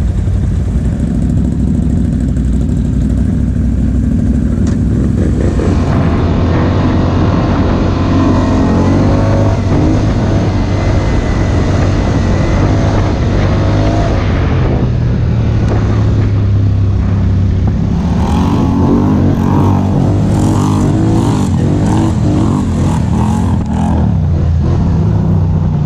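ATV engine running under way, its engine speed rising and falling, with more changes in pitch in the last third.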